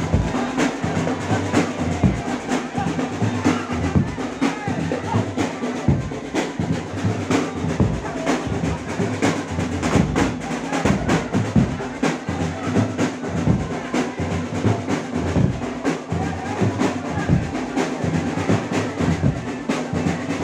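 Drum-led music for a jaran kencak dancing-horse performance, with a dense run of fast drum strokes over a steady accompaniment.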